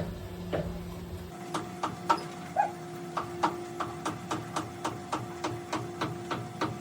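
Rapid, regular mechanical ticking, about three ticks a second, over a steady hum. Just over a second in the ticking quickens from a slower beat and a low rumble drops away.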